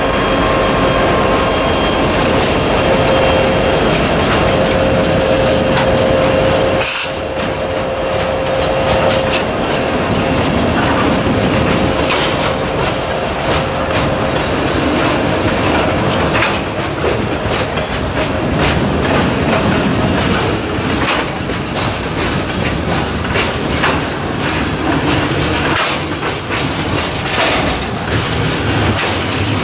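Freight train passing close by: CSX diesel locomotives, then loaded covered hopper cars rolling past, with wheels clicking over the rail joints. A steady high tone in the first seven seconds stops abruptly.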